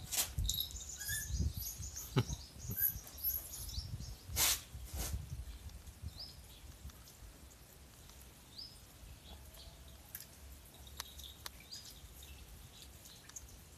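A wet puppy being washed by hand on a concrete floor: a few splashes and knocks in the first five seconds, the loudest about four and a half seconds in. After that it goes quieter, with scattered short high chirps.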